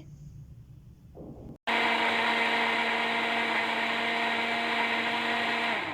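Electric blender motor running steadily, blending a liquid milkshake of milk, banana and crushed Oreo biscuits. It starts suddenly about two seconds in and its pitch drops near the end as it is switched off and winds down.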